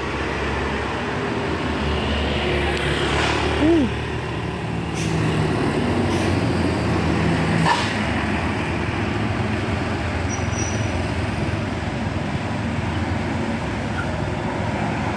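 A large bus passing close by, its diesel engine running with a heavy, steady low rumble. There is a short pitched toot about four seconds in, and two short sharp sounds near five and eight seconds.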